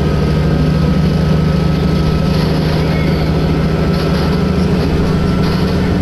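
Diesel railcar running steadily, heard from inside the passenger cabin as a low, even engine drone.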